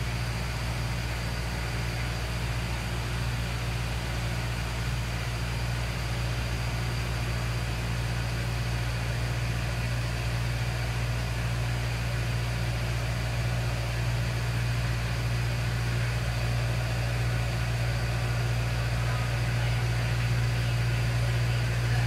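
A steady machine hum with a faint hiss, unbroken and without clicks, growing slightly louder toward the end.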